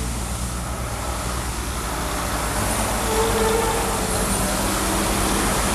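Kenworth T800 tractor-trailer coming down the grade and passing close, its diesel engine running under the hiss of tyres on wet pavement. The sound grows louder as the truck nears.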